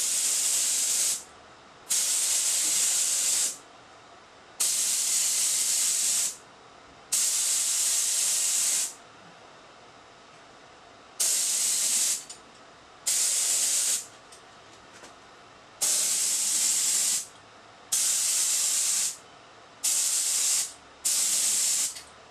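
Compressor-fed HVLP spray gun spraying urethane finish in short passes: ten bursts of air hiss, each about one to two seconds long, starting and stopping abruptly as the trigger is pulled and released.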